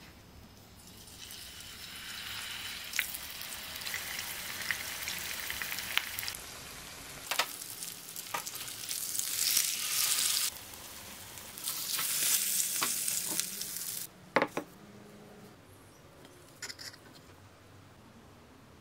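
Chilli-marinated swordfish steak sizzling as it shallow-fries in hot oil in a frying pan, with sharp clicks from the slotted spatulas turning it. The sizzling cuts off abruptly twice, the second time about two-thirds of the way in, and stays much quieter after that.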